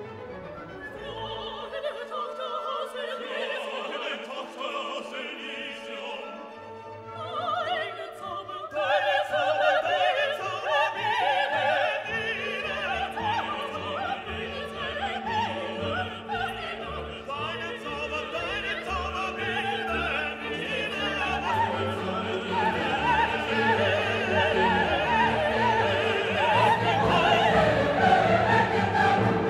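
Orchestral music with operatic singing, building and growing louder about nine seconds in.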